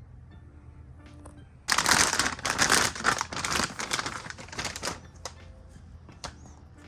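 Crinkling and rustling of packaging being handled, loud for about three seconds starting a little under two seconds in, over quiet background music.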